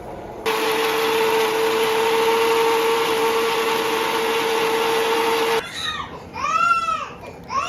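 Kitchen mixer grinder running steadily with a strong hum for about five seconds, grinding cooked apple into baby puree, then cutting off suddenly. A baby then cries in two rising-and-falling wails.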